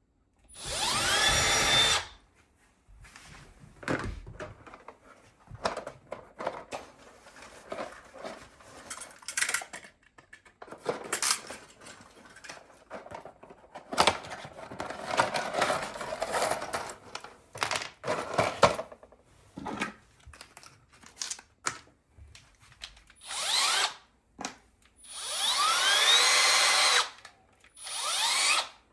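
Electric drill running in short bursts, its motor pitch rising as it spins up, drilling into a plasterboard wall for wall plugs: one run at the start and three close together near the end. Clicks and knocks of handling tools and the bracket come in between.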